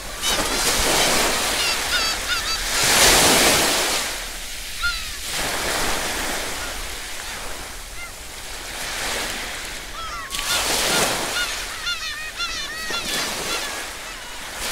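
Surf washing over rocks, swelling and falling back as waves break, with birds calling repeatedly in short cries that bend up and down in pitch.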